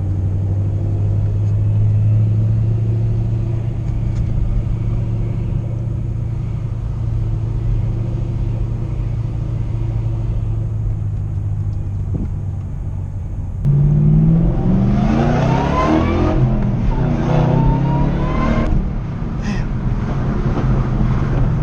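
Supercharged V8 of a 2008 Roush Blackjack Mustang, mufflers removed and straight-piped with the stock catalytic converters left in, heard from inside the cabin. It drones steadily at cruise, then about fourteen seconds in it suddenly gets louder and revs up, its pitch climbing twice, before settling back to a lower steady drone.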